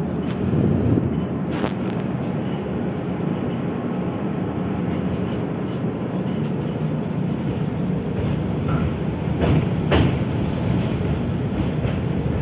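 Tatra T3SU tram running along the track, heard from inside the car: a steady rumble of wheels on rails, with a sharp clack about a second and a half in and another near the end.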